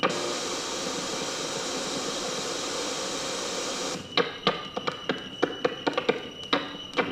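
Glitchy electronic soundtrack: a steady hiss of static that starts and cuts off abruptly, then about four seconds in a fast, irregular string of sharp digital clicks over a thin steady high tone.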